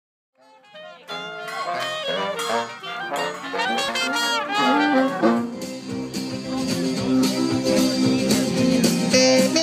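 Live acoustic band music that fades in from silence: a trumpet plays a melody with bent notes over acoustic guitar, settling after a few seconds into held, sustained chords.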